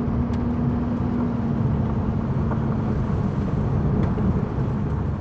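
2008 Chevy Colorado pickup driving on a dirt road: steady engine and tyre rumble, with a low hum that fades out about three seconds in.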